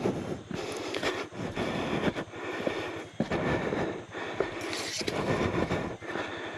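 Motorcycle jolting over a rough dirt track: a continuous mechanical clatter with irregular knocks, rattles and scrapes.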